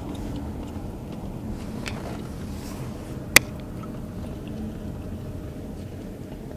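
Steady low road rumble of a car heard from inside the cabin while driving, with one sharp click about three and a half seconds in.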